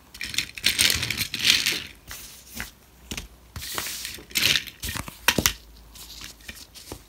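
A toy Thomas engine pushed by hand over grey plastic toy track, its wheels rattling, with clicks and clatter of plastic track pieces being handled and set down; the sharpest clicks come about five seconds in.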